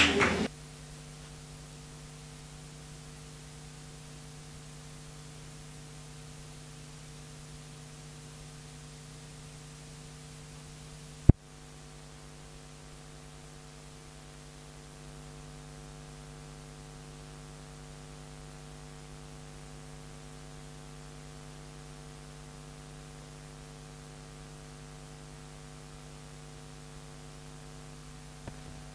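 Steady electrical mains hum, a low buzz with several pitches layered together. About eleven seconds in, one sharp pop.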